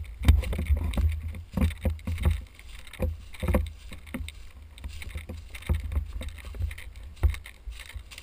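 Irregular knocks, clicks and rustles from a body-worn camera and gear jostling as the wearer walks over a dry forest floor, over a low handling rumble.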